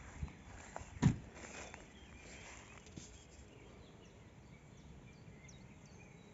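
Faint outdoor background noise with a single sharp knock about a second in, and a few faint high chirps later on.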